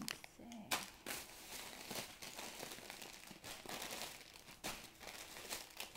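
Plastic wrappers of mini KitKat packs crinkling as they are handled, with a string of sharper crackles.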